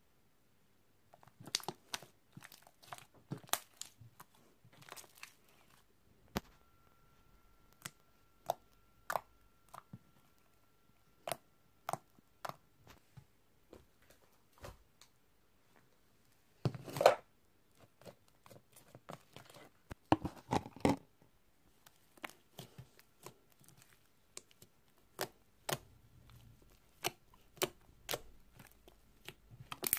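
Slime being squeezed and stretched by hand, giving irregular sharp pops, clicks and crackles, with a louder crackling squish about 17 seconds in.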